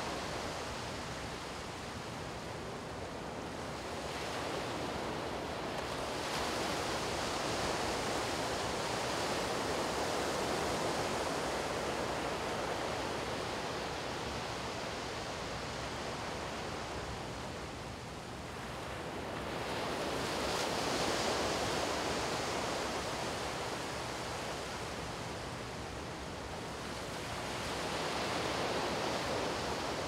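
Low surf washing up a sandy beach: a steady hiss of waves that swells and eases slowly, rising about three times as waves come in.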